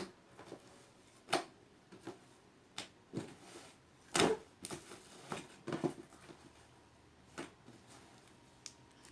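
Large homemade slime being stretched and squeezed by hand, giving short sticky clicks and pops at irregular intervals.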